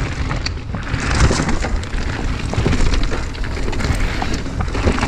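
Mountain bike riding fast down stony singletrack: tyres crunching over gravel and the bike rattling over bumps, with a low wind rumble on the chest-mounted camera's microphone.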